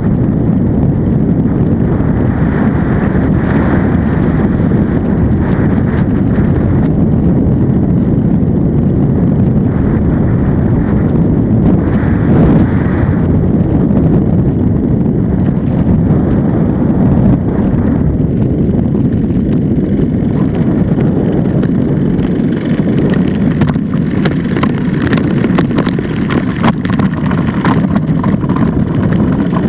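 Ultralight trike's engine and pusher propeller running steadily, with wind rush on the microphone, through landing and the rollout on grass. From about two-thirds of the way in, many short rattles and knocks join the engine as the trike rolls over rough ground.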